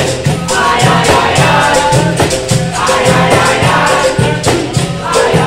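Capoeira angola roda music: berimbaus and pandeiros keep a steady beat of about two pulses a second under a group singing in chorus.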